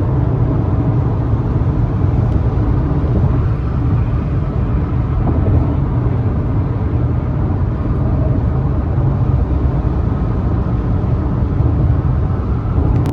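Steady road and engine rumble of a car heard from inside the cabin while driving.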